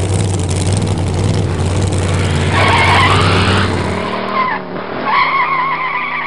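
Car sound effect under an intro: an engine running with a steady low drone, and tires squealing about two and a half seconds in and again about five seconds in. The engine drone drops out about four seconds in.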